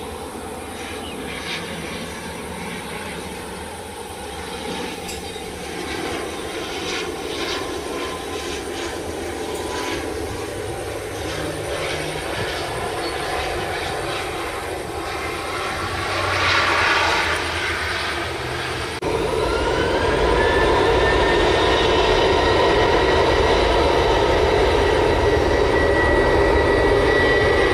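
ATR 72-600 turboprop landing, its propellers running with a steady drone and a brief swell in loudness after touchdown. The sound then jumps to a louder Boeing 737-800's CFM56 turbofans spooling up, with a whine that rises and then holds steady and high.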